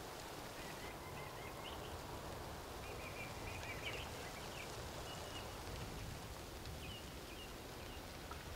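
Small birds calling in short chirps now and then, over a steady low background rumble.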